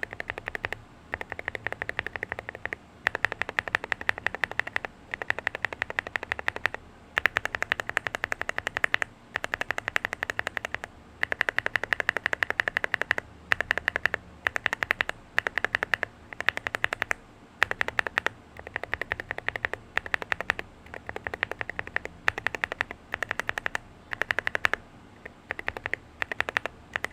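Fast typing on an Akko MU01 wooden mechanical keyboard fitted with Akko switches (Rosewood, Botany, Dracula and Piano V3 Pro compared side by side): rapid clacky keystrokes in bursts of a second or two with brief pauses between.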